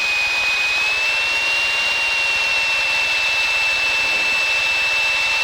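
Steady engine and propeller drone in the cabin of a Piper PA-28-161 in flight, its four-cylinder Lycoming engine running at a constant setting, with a thin high-pitched whine that rises slightly about a second in.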